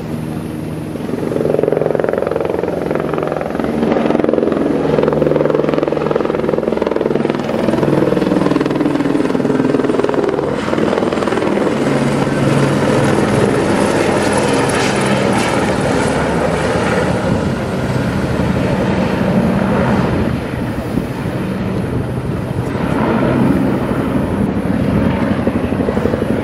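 A firefighting helicopter flying low overhead, its rotor beating steadily. It is loudest and sharpest around the middle as it passes almost directly above, then carries on as it moves off over the hillside.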